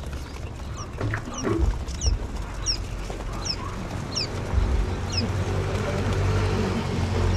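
Newly hatched quail chicks peeping: short, thin, high cheeps that slide downward, repeated about every two-thirds of a second over a low background rumble.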